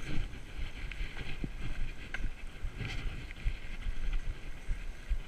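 Mountain bike riding a bumpy dirt trail, with tyre rumble and a few sharp knocks and rattles from the bike over bumps, plus wind buffeting the microphone.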